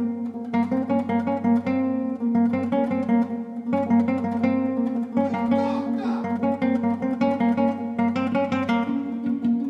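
Acoustic guitar music: rhythmic plucked and strummed chords.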